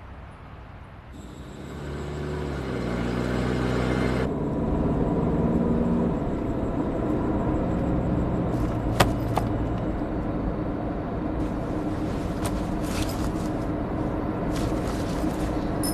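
Car engine and road noise as a car is driven, building up over the first few seconds and then running steadily, with a single sharp click about nine seconds in.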